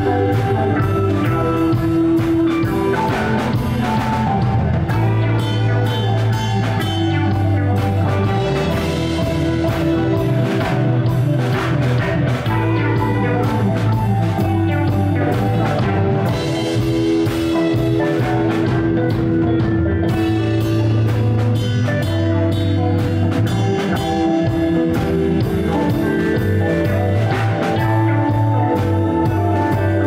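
A live funk jam band playing an instrumental passage: electric guitar, electric bass, drum kit and electric piano.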